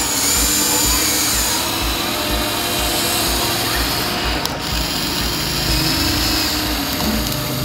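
Electric motors of a Huina remote-control toy excavator whining steadily, the pitch wavering a little, as the arm lifts and swings a bucket of sand.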